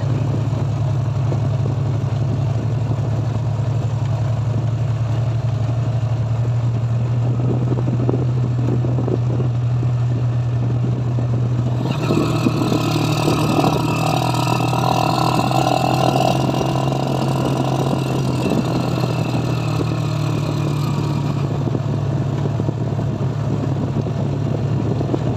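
Small vehicle engine running steadily as a low drone, heard from aboard an open-sided vehicle. About halfway through, a louder rushing noise joins it, easing off near the end.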